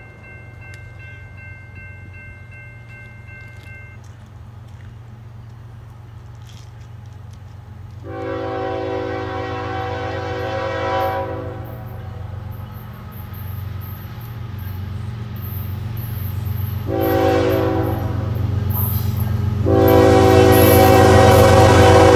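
CSX diesel freight locomotive approaching a grade crossing and sounding its air horn: a long blast about eight seconds in, a short one, then another long one near the end. This is the crossing signal. Under the horn the low rumble of the locomotive's engine grows steadily louder as the train draws near.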